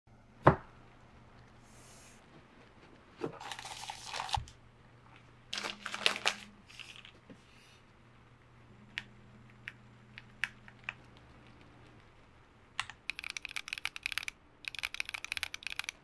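Unboxing sounds: plastic wrap tearing and packaging crinkling, with a sharp click near the start. After a few single clicks comes rapid typing on a mechanical keyboard, a Keychron Q60 with Gateron G Pro red switches, in two runs near the end.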